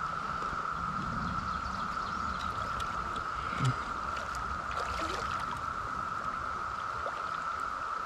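Steady, unbroken drone of a Brood X periodical cicada chorus over the rush of water in a shallow stream riffle, with a short low thump a little before halfway through.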